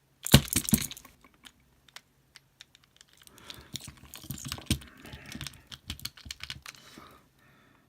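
Sharp clicks and clatter of a padlock being worked and handled with tools, loudest about half a second in, with a busier run of small clicks and rattles from about three to seven seconds.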